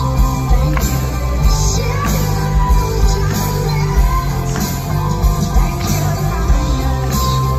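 Live rock band playing, with a woman singing lead over a drum kit.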